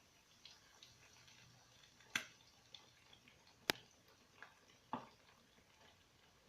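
Tilapia fillets frying quietly in oil, with a few sharp isolated pops, the loudest about three and a half seconds in.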